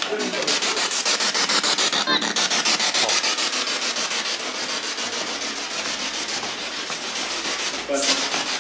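Radio static from a spirit box sweeping through stations: a steady hiss chopped into rapid, even pulses.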